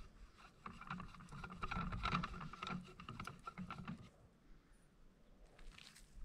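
Faint handling sounds as a suppressor is screwed onto the muzzle of a PCP air rifle, with a few light clicks and rubbing. They fade about four seconds in.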